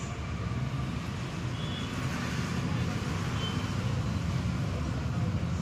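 Steady background rumble of road traffic, vehicle engines running.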